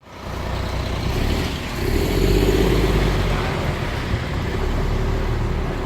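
An engine running steadily with a low rumble, swelling louder about two seconds in.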